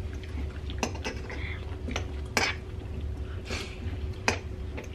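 Metal forks clinking and scraping against ceramic dinner plates during a meal, about half a dozen short sharp clinks spread over a few seconds.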